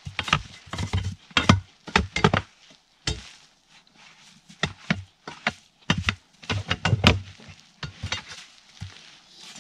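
Irregular knocks, thuds and scraping at a snowmobile's track and running gear as packed wet peat is cleared out of them. The knocks come in quick clusters of several strikes.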